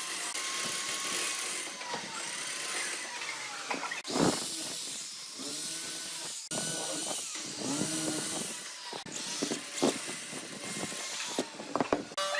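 Power tools working wood, their pitch sagging and recovering as they bite, with a few sharp knocks and sudden changes from one tool sound to the next.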